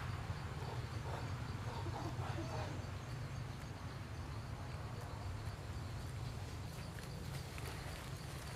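Outdoor forest ambience: a steady low rumble with a faint, even insect buzz, and a few faint short calls between about one and two and a half seconds in.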